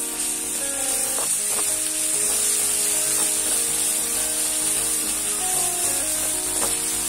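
Chili paste sizzling loudly in hot oil with fried garlic in a metal wok, stirred with a spatula that scrapes the pan a few times.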